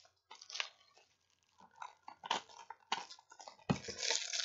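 Plastic shrink wrap crinkling and tearing as it is peeled off a DVD case, in short scattered crackles, with a knock about three and a half seconds in and then a longer crackle.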